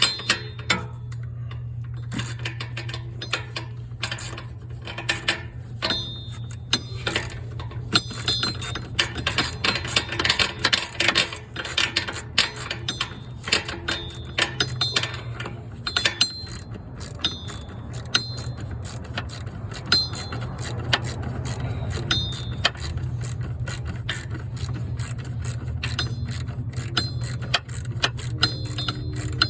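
Metal hand tools clicking and clinking against car parts in irregular bursts, some with a short metallic ring, over a steady low hum.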